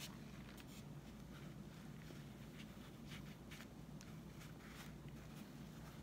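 Faint, scattered scuffs of fingers pressing and rubbing a stiff felt hat brim against a gourd, over a low steady room hum.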